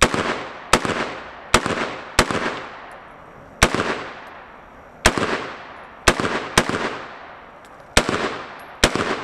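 An AR-15-type rifle fired about ten times at an uneven pace, a few shots in quick pairs, each shot followed by a ringing echo that dies away.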